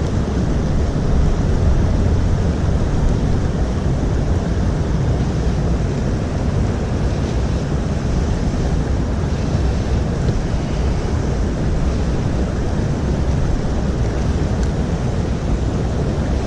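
Steady rushing noise of a flowing creek, with wind buffeting the microphone.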